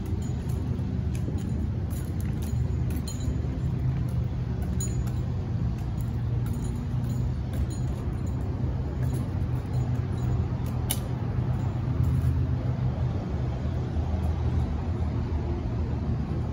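Steady low rumble of an engine running, with a few faint clicks.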